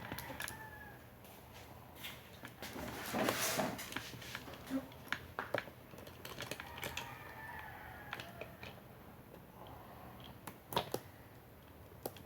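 A rooster crowing faintly in the background, twice, near the start and again past the middle. Scattered clicks and knocks of small metal and plastic parts being handled come through over it, with a rustling clatter about three seconds in and a sharp knock near the end.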